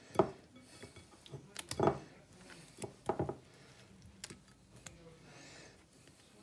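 Slices of white bread being handled and pressed into a bowl of beaten egg by hand: scattered soft knocks and clicks against the bowl, the strongest about a quarter second, two seconds and three seconds in.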